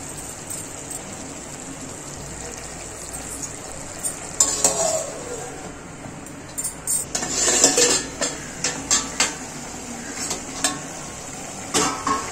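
Prawn curry sizzling and simmering in a steel kadai over a gas flame, with a scatter of sharp metal clanks and clinks from the pan and its steel lid. The clanks are densest from about four to ten seconds in.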